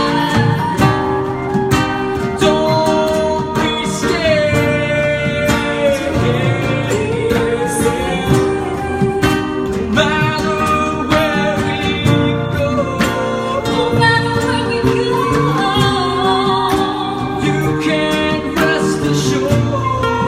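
A man sings a slow song to a strummed acoustic guitar, over long steady tones from crystal singing bowls.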